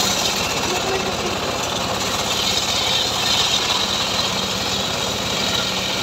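Homemade log sawmill's engine running steadily under load while a log is pushed through its saw blade, with a hiss of the blade cutting wood, strongest in the middle.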